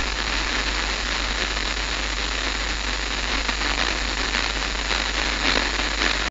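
Steady hiss of noise, like static, with a low hum underneath and a few faint crackles a little past five seconds in.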